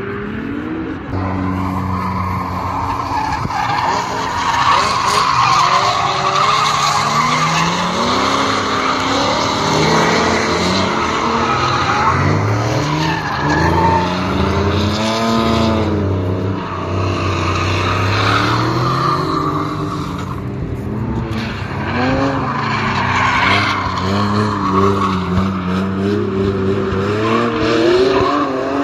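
Drift cars sliding through a corner, with engines repeatedly revving up and dropping back and tyres squealing as the cars slide sideways.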